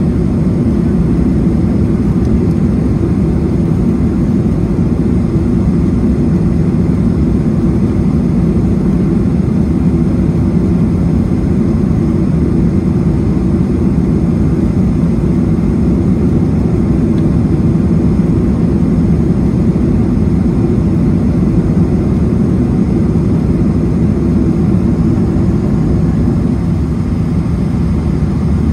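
Steady low roar of a Boeing 737-200's Pratt & Whitney JT8D turbofan engines and rushing air, heard from inside the cabin beside the wing as the jet descends to land.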